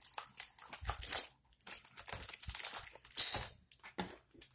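Pages of a hardcover picture book being turned and the book pressed open: paper rustling and crinkling in irregular bursts, with a few soft thumps.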